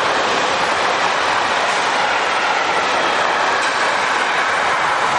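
Container freight train passing close by, its wagons' wheels running on the rails in a steady, loud noise.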